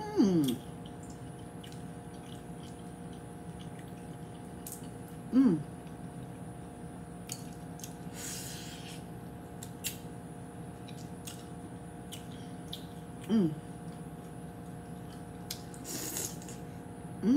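Close-up eating sounds of boiled crawfish and shrimp: wet sucking and slurping at the shells, with small clicks and lip smacks. Four short hummed "mm" sounds rise and fall in pitch, at the start, about five seconds in, about thirteen seconds in and at the end.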